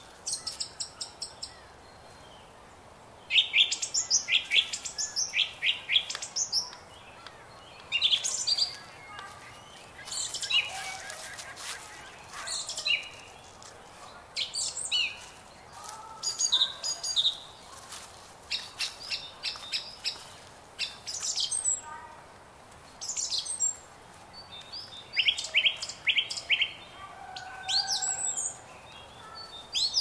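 Songbirds chirping and singing: short high phrases, many of them quick runs of repeated notes, follow one another every second or two.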